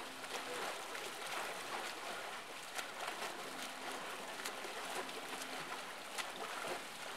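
Water splashing and churning as a swimmer does front crawl against the current of a counter-current swim system, with the arm strokes slapping into the water again and again.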